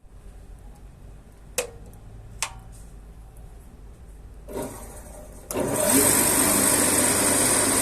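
Two sharp clicks, then about five and a half seconds in a drum sander's electric motor switches on and runs steadily with a high whine.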